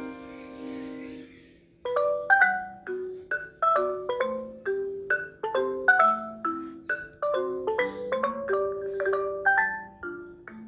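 Samsung Galaxy S25 ringtone played from a Galaxy A54 phone: a melody of short marimba-like mallet notes, about three a second, that starts after the previous tone fades out in the first second and a half.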